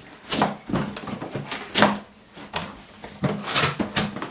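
Large cardboard boxes being handled and opened: irregular scrapes, rustles and knocks of cardboard, loudest about two seconds in and again near the end.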